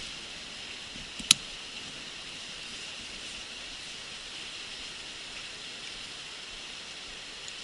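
Steady hiss of running stream water, with one sharp click a little over a second in.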